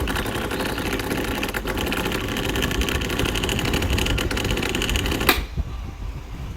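Hatari electric fan running with a rapid mechanical rattling and ticking from its worn, wobbling shaft bushing and rocking shaft, then cutting off suddenly about five seconds in.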